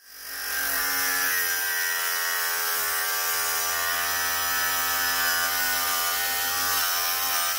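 Angle grinder running with its disc bearing into a piece of metal: a steady motor whine over the hiss of grinding, fading in at the start.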